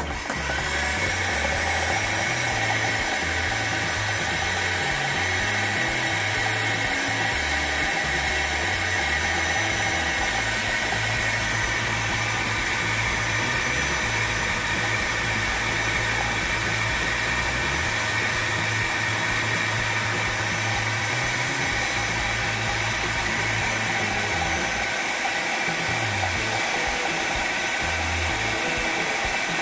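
Philips Walita food processor switched on and running steadily at full speed, its blade chopping garlic, onion, peppers, herbs and sea salt into a coarse seasoning mix.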